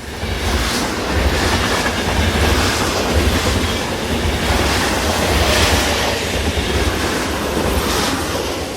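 A train running on rails, clickety-clack over a steady low rumble, fading in over the first second.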